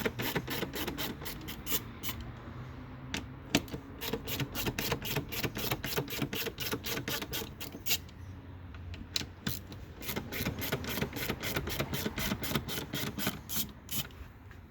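Rapid, even clicking of a ratchet turning a T25 Torx bit, about five clicks a second, in runs broken by short pauses, as the airbox lid screws are backed out.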